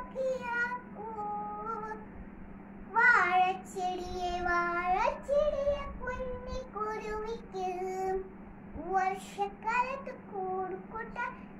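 A little girl singing a song solo, in held notes that bend up and down, with a steady low hum underneath.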